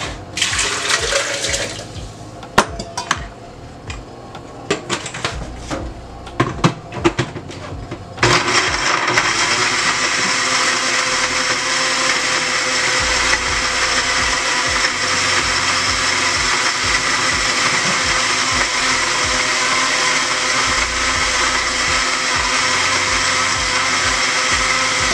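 Water poured from a steel bowl into a plastic blender jar standing in a stainless-steel sink, followed by scattered clinks and clatter of dishes. About eight seconds in, the kitchen tap comes on and runs steadily into the sink while hands and a bowl are rinsed under it.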